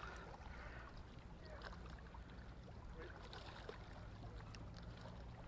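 Faint water lapping against a boat hull, with small scattered knocks and a low steady hum underneath.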